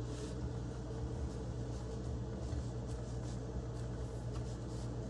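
Soft, irregular pats and brushing of a bare hand pressing powdered sugar onto pancakes on a plate, over a steady low hum.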